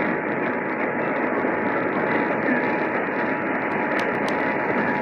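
Steady hiss of static from a weakly received radio signal. The Emergency Alert System's two-tone attention signal comes in faintly under the static right at the start and holds steady.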